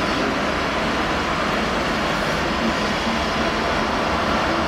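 Class 43 HST power car's diesel engine running steadily, a constant loud rumble with hiss at the platform.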